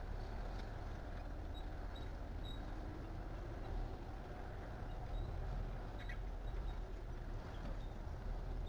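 Steady low rumble of heavy-equipment diesel engines running, with a few faint high ticks and one sharp click about six seconds in.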